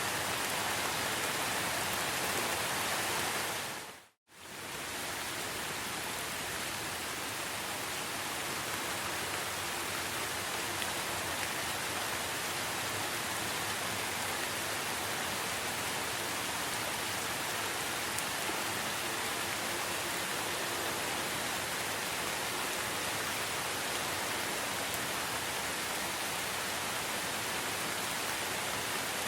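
Steady rain falling, an even hiss. About four seconds in it fades out to silence for a moment and fades back in, as at the joint of a looped recording.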